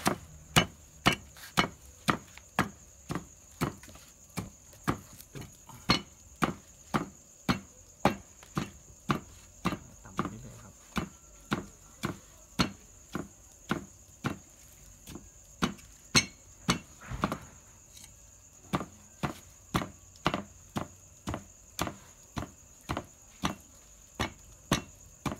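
Long wooden pestle pounding food in a mortar: steady, evenly spaced knocks, a little under two a second, with a brief pause about two-thirds of the way through. Crickets chirp steadily in the background.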